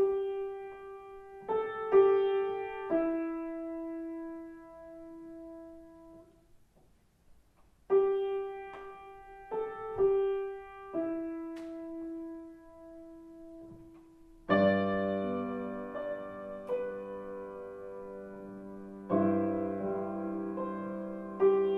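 Solo piano playing a slow melody: a short phrase in single notes, a pause, the same phrase again, then fuller chords with bass notes from about two-thirds of the way in.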